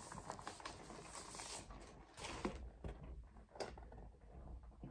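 Faint rustling of a paper inner sleeve as a vinyl LP is slid out of it and handled, with a few light ticks once the rustling dies down about halfway through.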